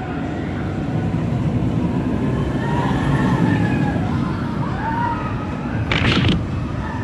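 Inverted roller coaster train running along its steel track overhead: a loud, continuous rumble with faint wavering voices above it, and a short rushing burst about six seconds in.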